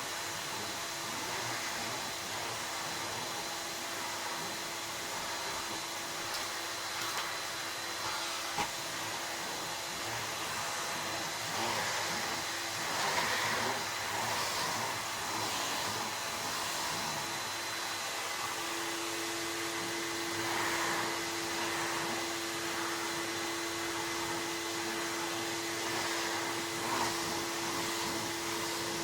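1983 Spinney RA1 de-luxe 900 pressed-steel cylinder vacuum cleaner, fitted with a replacement Electrolux motor, running: a steady rush of air over a motor whine. The air rushes unevenly louder through the middle, and the whine strengthens and changes note about two-thirds of the way through.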